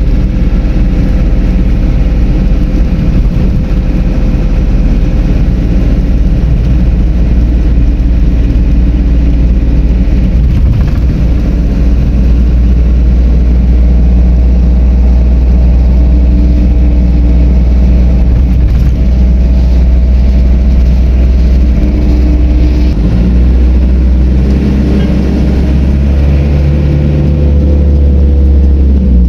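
A vehicle driving through city traffic, heard from on board: a loud, steady, low rumble of engine and road noise.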